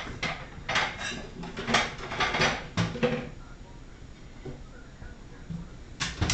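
Dishes and utensils clattering while food is plated: a run of clinks and knocks over the first three seconds, then two sharp knocks near the end.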